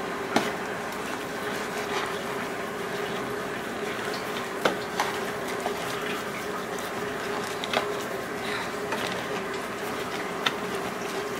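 Steady kitchen background hiss with a steady hum, over which come a few light clicks and taps as hands press a whole lionfish into cornstarch in a stainless steel pan.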